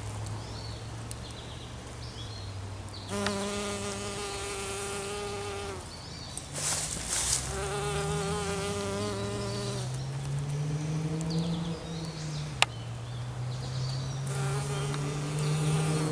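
A flying insect buzzing close by, its drone rising and falling in pitch as it moves about, fading out and coming back several times. There is a brief rustle about seven seconds in and a single sharp click later on.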